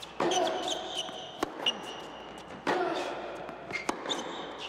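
Tennis rally on an indoor hard court: racket strikes on the ball about every second and a quarter, alternating louder and softer, each ringing on in the hall, with short high squeaks in between.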